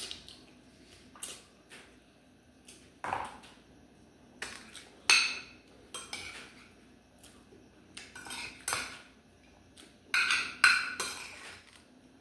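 Metal spoon scraping and clinking against a soup bowl while eating, in irregular short strokes, the loudest about five seconds in and again near the end.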